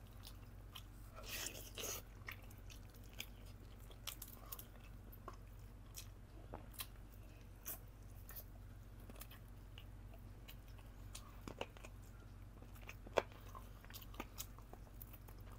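Faint close-miked eating of boiled chicken: chewing, lip smacks and small scattered mouth clicks as meat is picked off by hand and eaten. A denser cluster comes about a second and a half in and a single sharp click near the end, over a steady low hum.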